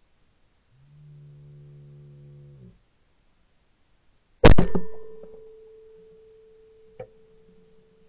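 A single shotgun shot fired at a flying clay target, very loud and sharp, about four and a half seconds in, followed by a single ringing tone that fades slowly. Before it, a low steady hum for about two seconds; a sharp click about two and a half seconds after the shot.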